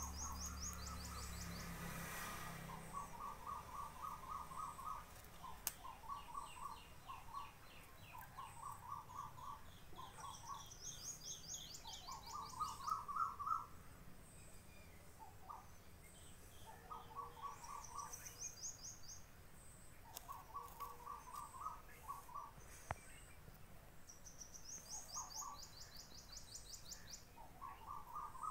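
Birds singing in short, rapid trills. A lower series repeats every second or two, and a higher-pitched trill comes in every few seconds, overlapping it.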